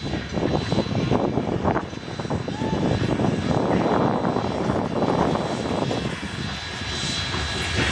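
NSWGR C32 class steam locomotive 3265 and its vintage carriages arriving at a station platform close by: a steady, dense rumble of the engine and its wheels on the rails, with many irregular knocks and clanks.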